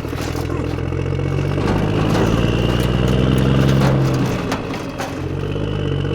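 A small engine running with an even hum. It speeds up a little about two seconds in and drops back to its earlier pace about a second before the end.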